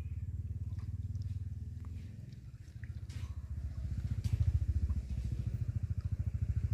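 A small engine running with a low, rapid pulse. It swells, dips about two seconds in, then grows louder again.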